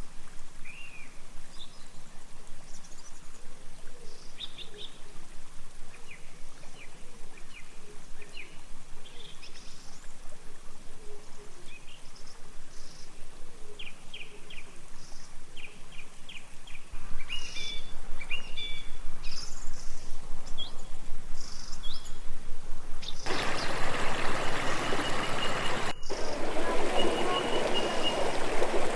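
Small birds chirping and calling over a quiet background. About three-quarters of the way through, the rushing of a flowing stream comes in suddenly and takes over, with birds still calling above it.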